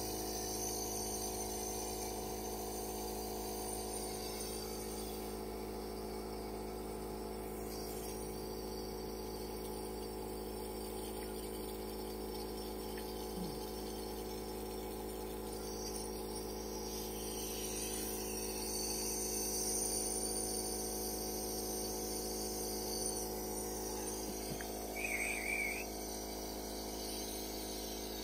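Nebulizer compressor running steadily, a constant hum made of several steady tones over a faint hiss. A short, high warbling sound comes in near the end.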